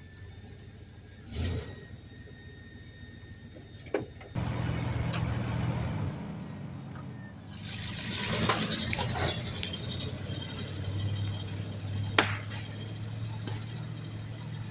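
The engine of a homemade Doodlebug skidder built from a Dodge W250 truck catches suddenly about four seconds in, after a click, and keeps running, louder for a moment around eight to nine seconds. A sharp knock comes about twelve seconds in.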